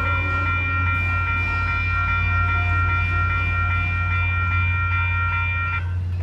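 Railroad crossing warning bell ringing steadily over a steady low rumble. The bell cuts off near the end as the train clears the crossing, just before the gates go up.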